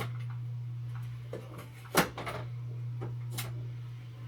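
A few short clicks and knocks of plastic machine parts being handled, the sharpest about two seconds in, over a steady low hum.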